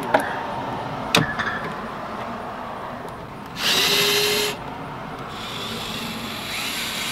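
Cordless drill/driver spinning a 10 mm socket on the mirror mounting nuts inside a van door. Two clicks come first, then a short loud burst of the motor about halfway through and a longer, quieter run near the end that rises in pitch.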